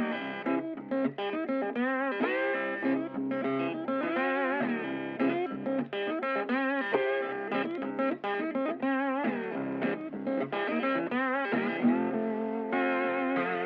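Background music: a melodic electric guitar line with vibrato on sustained notes.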